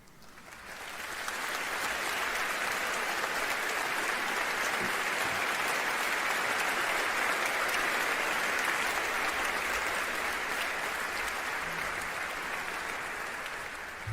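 Audience applauding, the clapping swelling in over the first second or so, holding steady, then easing slightly near the end.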